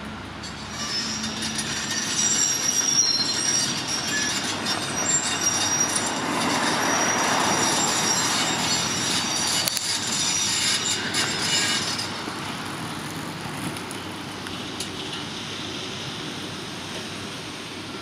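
High metallic squealing, several thin tones together, over a rumble of heavy machinery or traffic. It eases off about twelve seconds in, leaving a steadier background din.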